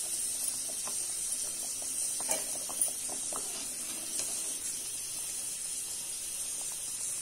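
A pot of lentil-dumpling curry simmering on a low flame: a steady faint hiss with soft, scattered bubbling pops and ticks.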